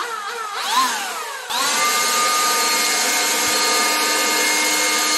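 DeWalt 20V MAX XR brushless cordless leaf blower revved in short trigger pulls, its whine rising and falling, then held at full speed from about a second and a half in with a steady whine and rush of air.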